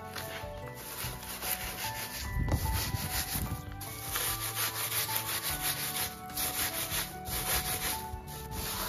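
Hands rubbing roasted green wheat ears between the palms, a dry rustling scrape that husks off the chaff, with a brief low blast of noise about two and a half seconds in. Soft background music plays underneath.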